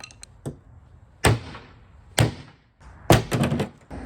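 Sharp knocks: one faint, then two loud ones about a second apart, and a quick flurry of knocks near the end.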